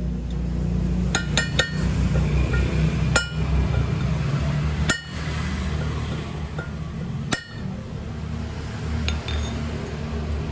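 Sharp metallic clinks with a short ring: three in quick succession about a second in, then three more about two seconds apart. It is a metal drift pipe being tapped to drive a new spark-plug tube into a Suzuki Zebra's aluminium cylinder head. A steady low hum runs underneath.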